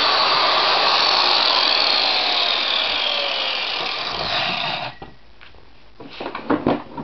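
Electric angle grinder running against a push mower's blade, touching up the cutting edge, then switched off and winding down with a falling whine until it stops about five seconds in. A few short knocks follow near the end.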